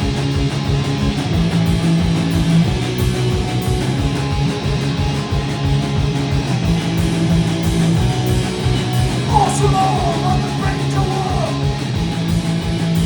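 Live punk band playing an instrumental passage: distorted electric guitar chords over drums keeping a fast, steady beat.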